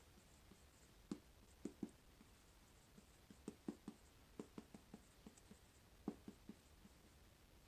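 Faint pen strokes on a notepad: short, soft taps and scratches coming in irregular clusters.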